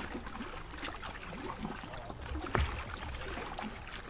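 Kayak paddle working the canal water: soft splashes and water trickling off the blades, with two light knocks, one about a second in and one past the middle.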